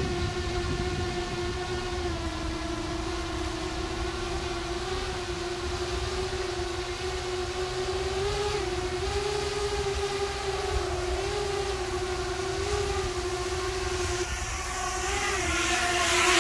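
Cinelifter octocopter drone with eight Xnova 2812 motors and 8-inch three-blade props in flight: a steady buzzing hum whose pitch wavers slightly. It grows louder and rougher in the last couple of seconds.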